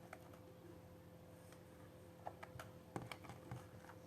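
Near silence with a faint steady hum, then from about halfway through a run of faint short clicks and taps, like small objects being handled.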